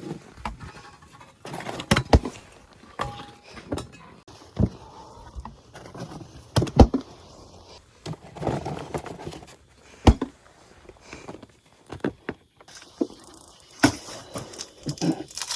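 Irregular knocks, clicks and rustling as objects are handled and set down, with the sharpest knocks about two, seven and ten seconds in.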